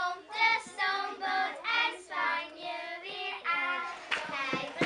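A group of young children singing a Dutch Sinterklaas song together.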